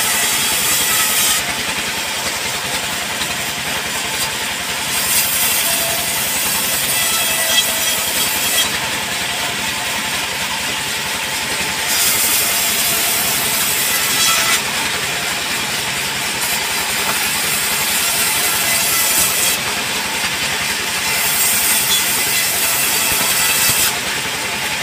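Vertical band saw resawing mahogany slabs. Its blade cuts through the wood in stretches of a few seconds each, four in all, with the machine running between cuts.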